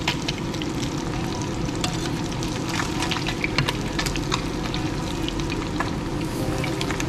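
Whole crappies frying in a skillet of hot oil with garlic cloves: steady sizzling with frequent sharp crackles and pops from the oil.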